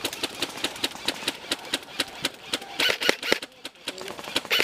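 Airsoft guns firing: a steady run of sharp clicking shots, several a second, then a few louder shots about three seconds in and again near the end.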